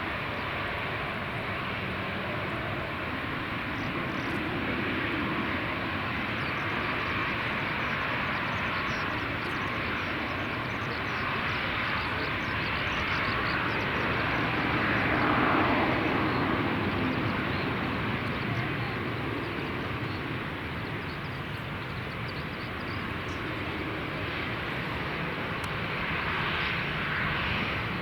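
Airliner engines passing by: a steady rushing sound that swells to its loudest about halfway through, then eases off.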